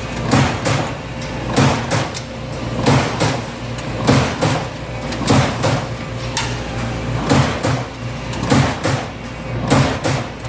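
Amada Aries 245 CNC turret punch press punching sheet metal: a series of sharp punch strokes, roughly one every second and some in quick pairs, over a steady machine hum.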